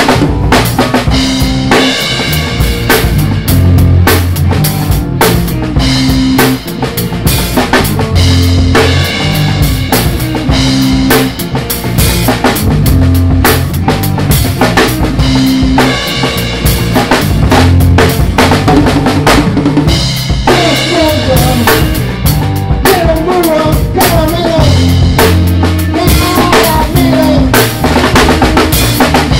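Instrumental jazz-rock played live by a trio of electric guitar, electric bass and a Gretsch drum kit: the drums keep a steady beat with snare and bass drum over the bass line. From about two-thirds of the way in, the guitar's melodic lines come forward.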